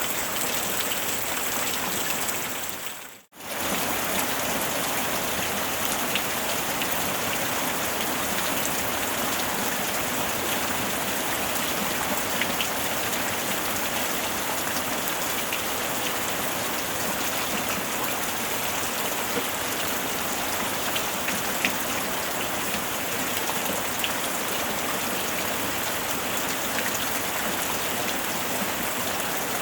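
Steady rain falling, an even hiss with scattered drop ticks. About three seconds in it fades out almost to silence for a moment and comes straight back, as at the join of a looped recording.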